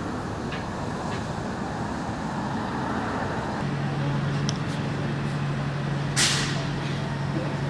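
Steady outdoor traffic-like rumble, then at a railway platform a steady low hum sets in about halfway as a red electric commuter train approaches, with one short, sharp hiss about six seconds in.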